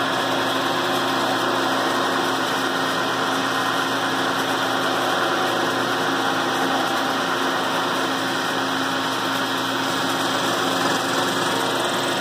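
Milling machine running steadily, its cutter machining out the dividing wall of a floor edger's dust collector housing.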